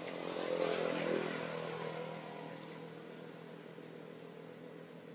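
A steady engine hum that swells about a second in and then fades, as of a motor vehicle passing.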